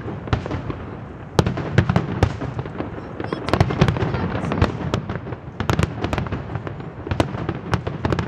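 Large fireworks display: aerial shells bursting in a dense, overlapping run of bangs and crackles, several a second, over a steady low rumble, growing louder about a second and a half in.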